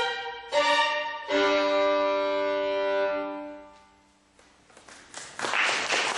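Unaccompanied solo violin playing the closing bars, a held double-stop chord that fades away about three and a half seconds in. After a brief hush, scattered claps build into audience applause near the end.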